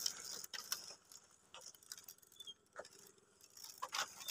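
Faint, scattered clicks and creaks of bamboo slats underfoot on a bamboo footbridge, irregular and sparse, picking up again near the end.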